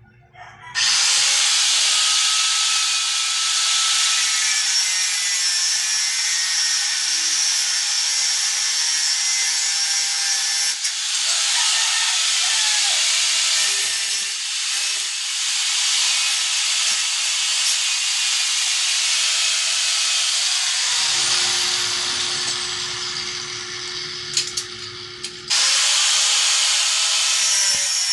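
Angle grinder's disc cutting into metal: a loud, steady grinding hiss that starts about a second in. Near the end it eases to a quieter, lighter grind with the motor's hum showing, then bites in at full strength again.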